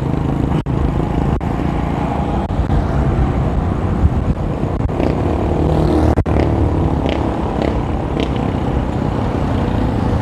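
Steady road traffic heard from a moving bicycle: motorcycle and car engines running along the road under a continuous rush of wind on the microphone.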